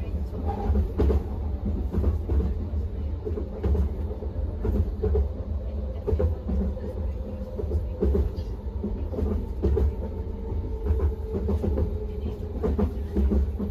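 SkyTrain car running along the track: a steady low rumble with a faint steady whine and scattered clicks from the rails.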